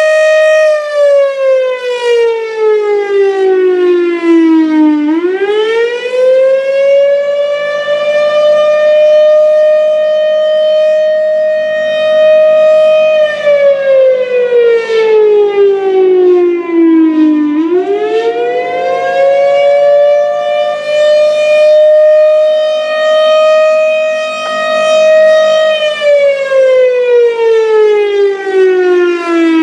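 1957 Federal Sign & Signal Thunderbolt 1000 outdoor warning siren sounding its attack signal: a loud wail that holds high for several seconds, slides down over about four seconds, then climbs back up, repeating roughly every twelve seconds, with a low rumble underneath.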